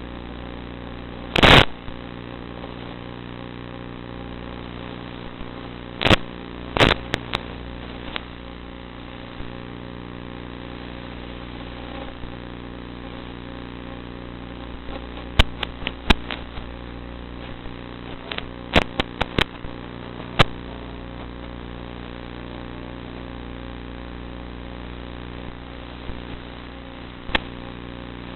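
Zagi flying wing's electric motor and propeller droning steadily at an even pitch. Sharp loud cracks break in once near the start, a few times in the middle, and once near the end.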